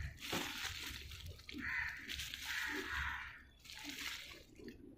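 Plastic grow bag around an oyster mushroom block crinkling and rustling in the hands as the block is handled and turned over.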